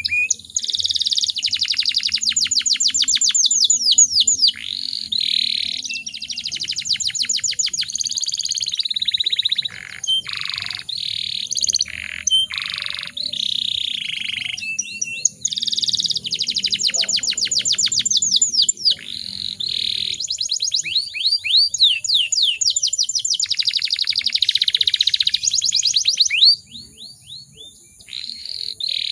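Domestic canary singing a long, varied song with fast rolling trills. It pauses briefly near the end and then resumes.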